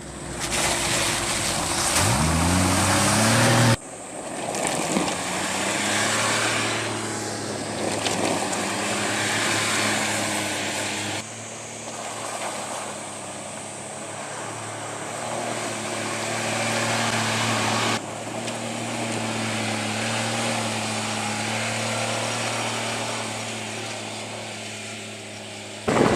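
Polaris MRZR off-road vehicle engine running, revving up with a rising pitch a couple of seconds in, then settling to a steadier drone. The sound changes abruptly several times, at cuts between clips.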